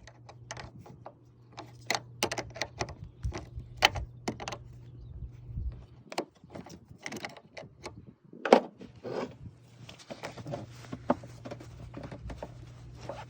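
Clicks, knocks and rattles of hand work on a car as the hood is popped open and the battery is disconnected, with one louder knock past the middle. A steady low hum runs underneath and drops out for a few seconds midway.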